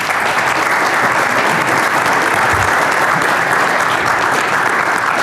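Large audience applauding, a steady dense clapping from many hands.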